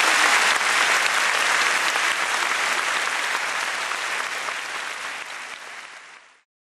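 Audience applauding, a dense clapping that gradually fades and then cuts off about six seconds in.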